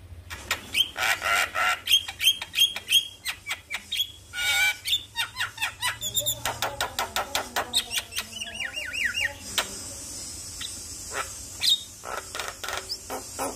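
Javan myna singing a fast, varied song of harsh squawks, clicking chatter and short whistled notes, with a quick run of repeated notes about midway.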